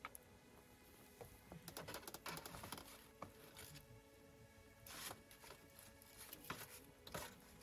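Faint crackling and popping of a wood fire, with a few louder knocks and scrapes as the burning logs are shifted with metal fire tongs in the second half.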